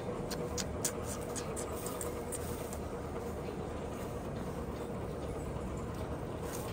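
Steady low rumble of a running vehicle, with a faint steady hum and a few light clicks in the first couple of seconds.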